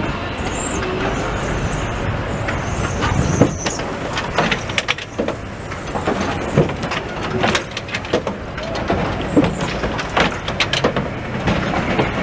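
Translohr rubber-tyred tram passing close by while rounding a curve on its central guide rail: steady running noise with a string of sharp clicks and knocks through the middle, and brief high squeaks in the first few seconds.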